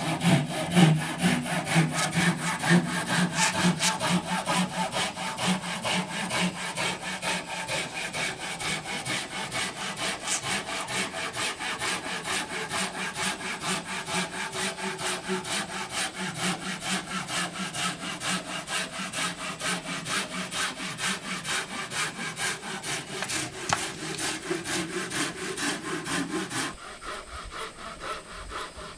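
Hand saw cutting through wood in quick, even back-and-forth strokes, stopping near the end.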